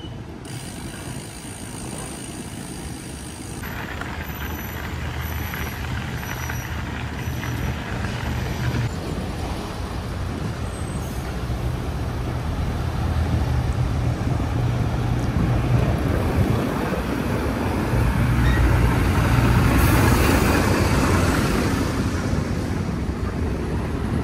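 Diesel engines of a queue of heavy lorries running with a steady low rumble that grows louder as the bike rides along the line, with a hiss about twenty seconds in.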